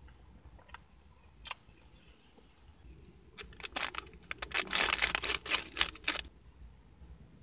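A plastic M&M's candy bag being crinkled and torn open by hand: a dense run of loud crackling from about three and a half seconds in, stopping at about six seconds.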